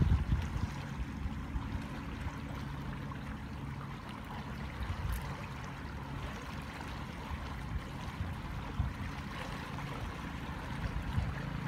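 Swollen, muddy floodwater in a stream rushing and churning steadily, with heavier low rumbling near the start.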